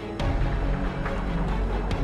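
Background music with held tones and a few sharp percussive hits.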